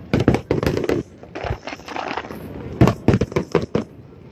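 Fireworks crackling: rapid runs of sharp pops, one in the first second and another about three seconds in.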